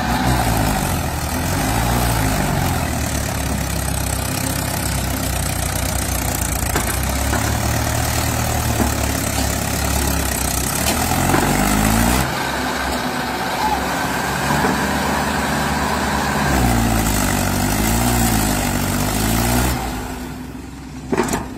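Mahindra 475 DI tractor's four-cylinder diesel engine working hard under heavy load as it tries to haul a stuck, fully loaded trolley. The revs rise and fall several times, and the engine eases off near the end.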